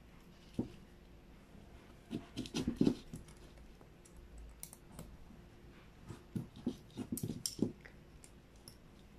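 Short metal clicks and knocks of a motorcycle carburetor being handled as its top-cover screws and fittings are put back by hand, in a few clusters about two seconds in and again around six to eight seconds.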